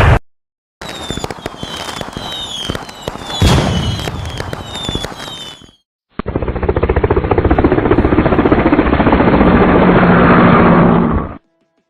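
Edited action sound effect in two parts. First, a run of sharp shots or pops with short falling whistles between them. Then, after a brief silence, about five seconds of dense, rapid crackling like sustained automatic fire, which cuts off suddenly.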